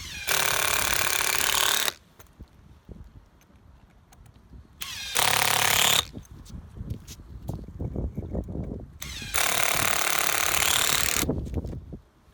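Power drill running in three bursts of one to two seconds each, with quieter handling noise in between: drilling and fastening work for anchoring PVC waterproofing sheet to a roof by the mechanical fastening method.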